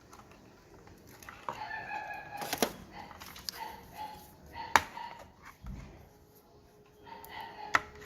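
A chicken calling in short pitched cries, with a few sharp clicks among them.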